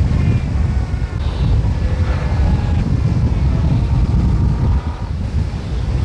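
Wind buffeting the microphone over surf, with Cape fur seals calling in sheep-like bleats several times.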